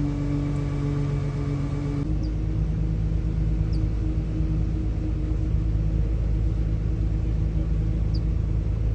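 Steady low engine drone on a vehicle ferry, with the pitch of its hum shifting slightly about two seconds in.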